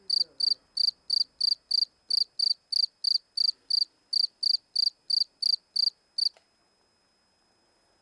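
Field cricket calling from its burrow mouth: a regular run of short, shrill chirps, about three a second, that breaks off abruptly about six seconds in.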